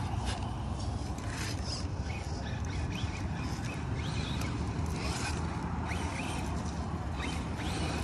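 Axial Capra RC rock crawler crawling over stone, its Hobbywing Fusion 1800kv brushless motor giving a few short rising whines as the throttle is fed in, with tyres and chassis scraping and clicking on the rocks. A steady low rumble lies underneath.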